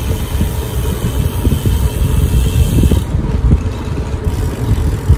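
Wind buffeting the microphone of a rider's camera while cycling, a loud, uneven low rumble.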